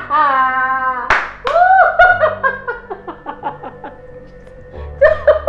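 A woman laughing hard in a run of short bursts that tail off, with a sharp clap about a second in and another burst of laughter near the end.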